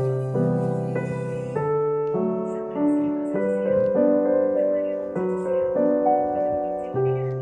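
Background music: gentle piano playing soft, slow chords, lullaby-like.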